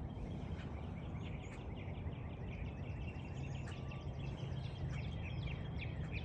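Small birds chirping in a rapid, busy chorus of short high notes over a steady low rumble.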